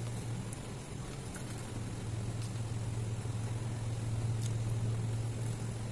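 A steady low hum, the loudest sound throughout, with a few faint soft clicks as fingers tear and handle a luchi.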